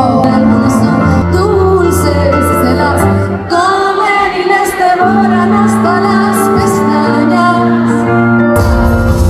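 Live pop music: a woman singing, first with acoustic guitar; about three and a half seconds in, the music changes to her singing with piano accompaniment.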